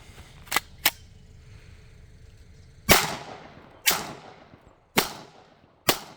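Two light clicks, then a Glock pistol firing four shots about a second apart, each with a short echoing tail. The pistol is still firing shot after shot after being dunked and dragged through pond mud.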